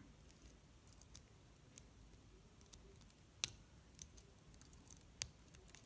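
A lock pick and tension wrench working the pins of an American Lock 5300 series pin-tumbler padlock: faint scattered ticks with a few sharper clicks, the loudest about halfway through. This is the sound of pins being lifted and set.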